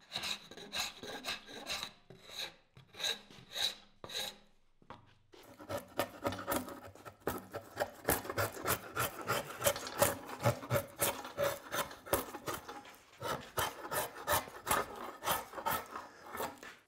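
Drawknife shaving bark and wood from an Osage orange bow stave clamped in a vise, chasing a single growth ring down to the bow's back, in rapid repeated scraping strokes. A short pause about five seconds in, then the strokes run on without a break.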